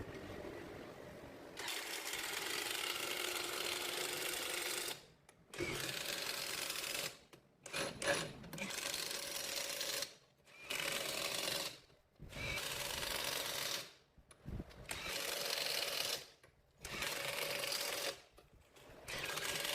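A power tool run in repeated bursts of about one to three seconds, with short pauses between them.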